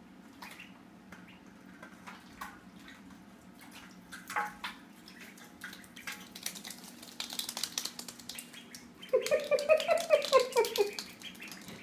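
Ducklings splashing in a shallow metal pan of water and scrambling across a wet floor: scattered small splashes, drips and light clicks, busier in the second half. Near the end comes a short burst of a quickly repeating voice.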